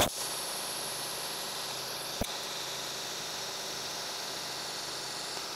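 TIG welding torch arc running steadily on stainless steel with a filler rod being fed in, a steady hiss. A sharp crack comes right at the start and a single click about two seconds in.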